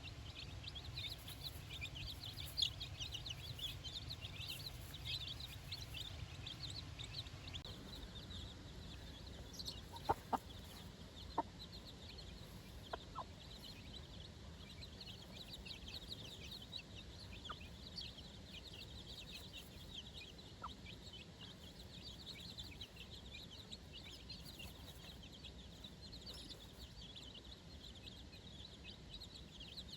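A brood of four-day-old chicks peeping steadily, many short high-pitched peeps a second overlapping throughout. About ten to thirteen seconds in, a few short, louder, lower calls stand out, clucks from the mother hen.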